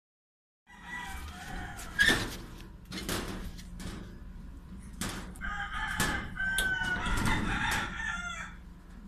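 A rooster crowing with drawn-out pitched calls, mixed with several sharp knocks and rattles from a metal door and its bolt latch.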